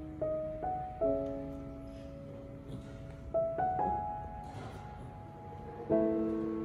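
Slow background piano music: single struck notes and small chords a second or more apart, each ringing and fading.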